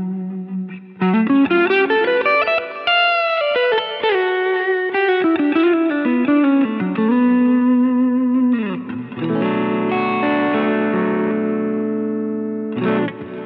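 Sterling Majesty X electric guitar on its neck pickup through a crunch (light overdrive) tone, playing a lead phrase of single notes with slides and bends. A note slides down about two-thirds of the way through, then a chord is left to ring for several seconds and dies away at the end.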